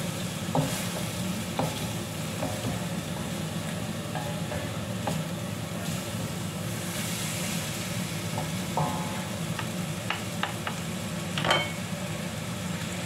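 Noodles sizzling in a wok over a gas flame while a wooden spatula stirs and tosses them, with scattered clicks and knocks of the spatula against the wok. The loudest knock comes near the end, over a steady low hum.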